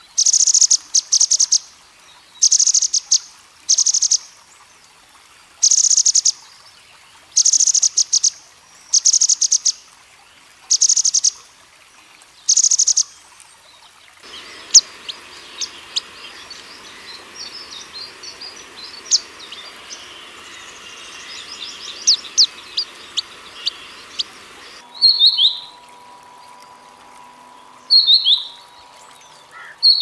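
Grey-headed canary-flycatcher singing. For the first half it gives short, high, rattling phrases, usually two in quick succession, repeated every second or two. After an abrupt change of background come many quick high chirps, and near the end short, falling, whistled notes over a faint steady hum.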